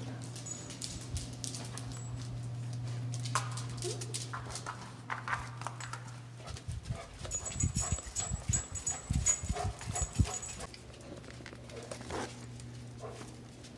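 A basset hound walking about: light claw clicks on a hard floor over a steady low hum, then about halfway a few seconds of soft thumps with a bright metallic jingle from its collar.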